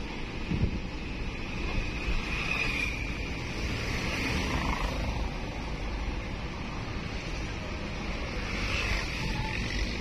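Steady engine and road noise inside the cab of a moving vehicle, with one short thump about half a second in.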